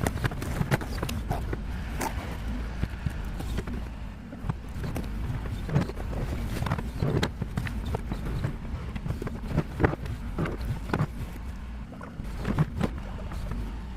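Excavator's diesel engine running steadily, with irregular knocks and clanks as the machine works.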